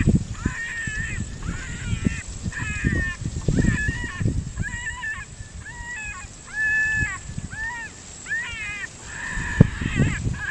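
Coyote challenge calls played through a FoxPro electronic game caller: a fast, steady string of short, pitched yelps, each bending up and down, about one and a half a second. Low rumble from wind on the microphone runs underneath.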